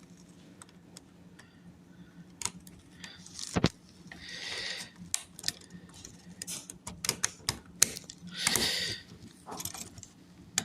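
Plastic Lego Technic pieces being handled and snapped together: scattered sharp clicks, with a brief rattling stretch near the middle and another near the end.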